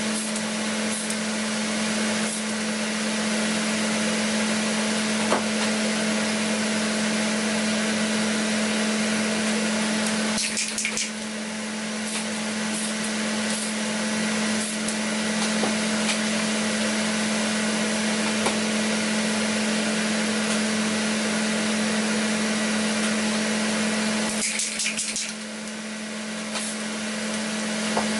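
Exhaust fan running steadily with a constant hum, under a hiss of matte clear topcoat being sprayed onto model parts; the sound dips briefly twice, about 10 and 24 seconds in, with a few light clicks.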